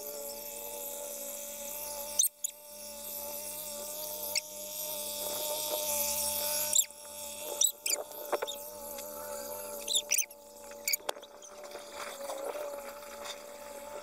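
Fiat 480 tractor working a field, its sound fast-forwarded so that it comes out as a high, wavering, squeaky whine. Several sharp clicks cut through it, the loudest about seven seconds in.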